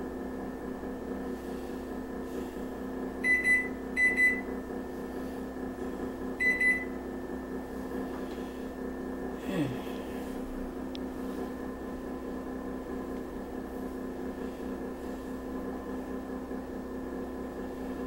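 Hamilton Beach microwave oven humming steadily, with a few short, high keypad beeps between about three and seven seconds in as its buttons are pressed.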